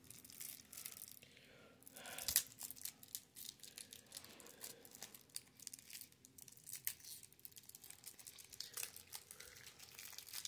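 Wrapper on a new deck of playing cards crinkling and tearing as it is pulled open by hand: faint, irregular crackles.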